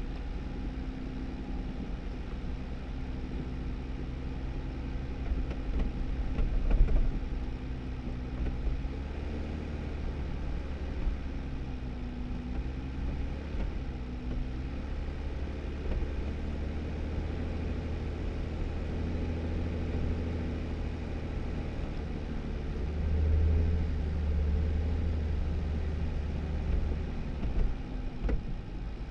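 2018 Jeep Wrangler driving slowly on a snowy dirt road: the engine runs steadily, its pitch drifting gently with speed, over a low rumble of tires on the road. There is a louder jolt about seven seconds in and a small knock near the end.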